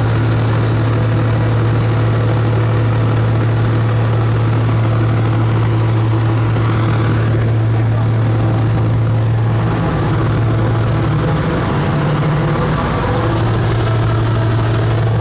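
A steady, loud low-pitched mechanical hum. Its pitch rises briefly about ten seconds in, then settles back.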